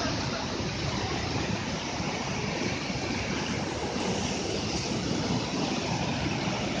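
River rapids rushing and splashing over boulders, a steady rush of water.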